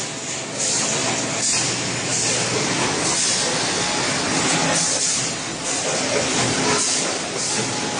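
Snack-food packaging line running: multihead weighers and vertical packing machines give a dense, steady machine noise with frequent short bursts of hiss.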